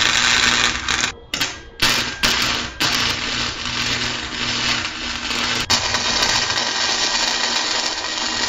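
Electric welding arc sizzling as two metal plates are welded at a corner. The hiss breaks off briefly about a second in and again near two and three seconds in, then runs unbroken.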